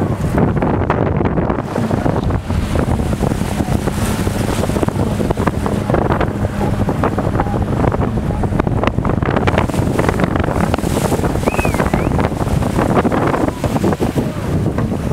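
Wind buffeting the microphone over choppy water lapping and splashing against a boat, with a faint steady low hum in the first half and a short high chirp about two-thirds of the way in.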